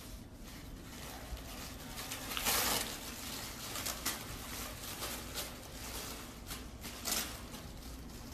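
Paper tissue rustling and crinkling in short bursts as a mini pig grabs it in its mouth, shakes it and drags it across carpet; the loudest bursts come about two and a half seconds in and near seven seconds.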